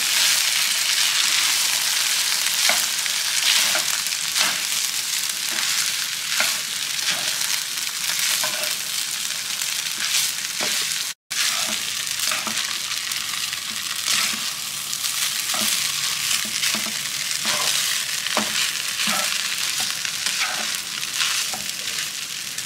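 Nasi goreng sizzling in a hot non-stick pan while a slotted spatula stirs and turns it, with irregular scraping and tapping strokes over a steady frying hiss.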